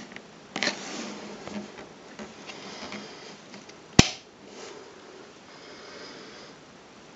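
Rustling and handling noise, then about four seconds in a single sharp click of a toggle switch on the Bell & Howell 606H projector lamp's base being flipped to switch the lamp on.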